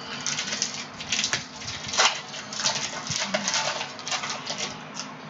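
Foil wrapper of a Donruss Optic basketball card pack being torn open and peeled back by hand, crinkling in a run of sharp rustles, loudest about two seconds in.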